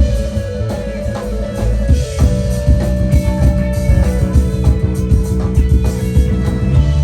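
Live band playing an instrumental groove: guitar, bass guitar and drums. A guitar note is held for a few seconds near the end over the bass line and beat.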